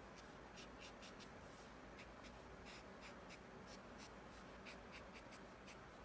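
Faint, light scratching of a Shinhan brush marker's brush-pen tip dabbing short strokes onto watercolour paper, irregular and a few to the second.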